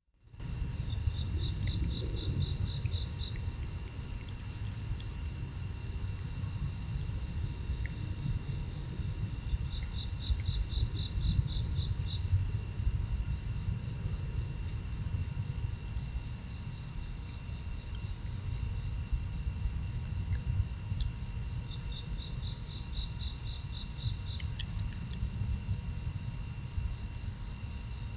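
Night insect chorus: a steady high-pitched cricket trill, joined three times by another insect calling in short runs of about four pulses a second. Under it is a steady low rumble.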